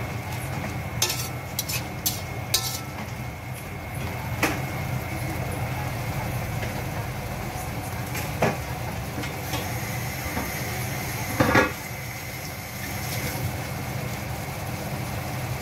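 Shrimp frying in a pan with a steady sizzle, while a metal utensil stirs and clinks against the pan: a few clinks in the first few seconds, more now and then, and a louder clatter about eleven seconds in.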